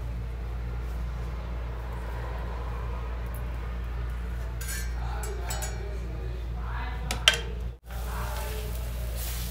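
Metal spoon clinking a few times against an iron tawa and a ghee tin while ghee is spread, the sharpest clink toward the end, over a steady low hum.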